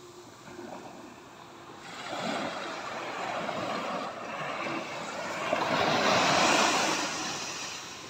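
Small sea waves breaking and washing up onto a sandy beach. The surf swells about two seconds in, is loudest about two-thirds of the way through, then eases off near the end.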